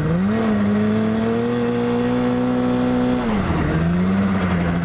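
Yamaha snowmobile engine running under throttle while riding: its pitch climbs in the first half-second, holds steady for about three seconds, then falls and settles at a lower steady pitch near the end.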